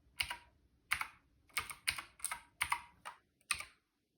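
Keychron K4 V2 mechanical keyboard with clicky Gateron Blue switches being typed on: about eight separate keystrokes at an uneven pace, stopping shortly before the end.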